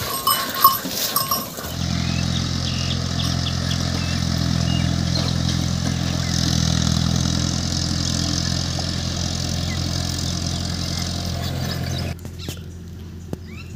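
An engine or motor running steadily at an even speed, starting about two seconds in and cutting off abruptly near the end. It is preceded by a few brief clicks and knocks, and followed by quieter outdoor background with faint chirps.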